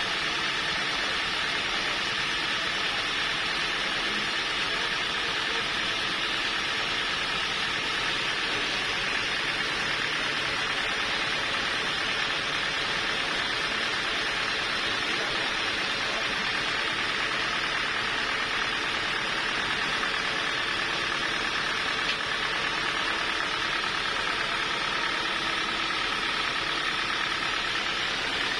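Sawmill saw machinery running steadily, a constant mechanical noise with a steady high whine.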